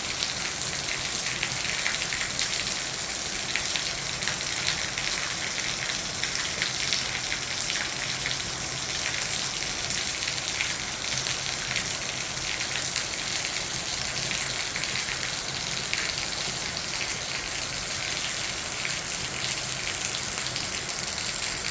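Steady rain falling, a dense patter of many small drop ticks over an even hiss that holds the same level throughout.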